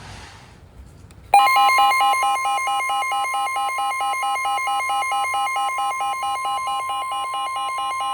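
NOAA Weather Radio warning alarm tone: a loud steady 1050 Hz tone starts about a second in, with a fast pulsing beep about five times a second sounding over it. It is the alert that announces a new warning message, here a severe thunderstorm warning.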